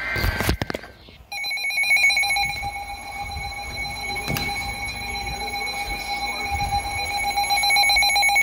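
A weather alert radio sounding its alarm: a rapidly pulsing, buzzy electronic alarm that starts about a second in, after a short tone and a few clicks. It signals that a new warning alert is coming in.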